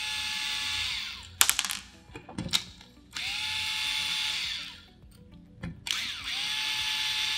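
Panasonic cordless electric screwdriver backing screws out of an air rifle's metal receiver plate: three runs of motor whine, each spinning up with a rising pitch and lasting one to one and a half seconds, with sharp clicks and taps between the runs.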